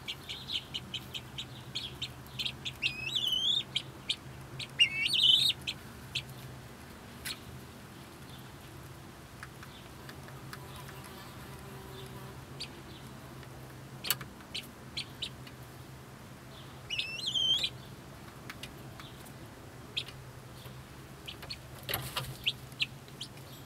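Helmeted guineafowl chattering: quick runs of high chirps that bend up and down in pitch during the first six seconds and again about seventeen seconds in, with scattered single chirps between. A faint steady low hum sits underneath.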